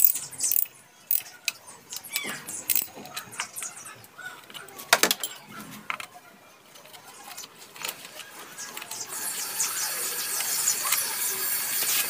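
Scattered metallic clicks and clinks of a hand tool working on the valve cover bolts, with one sharper click about five seconds in. From about nine seconds in, a steady hiss rises and holds.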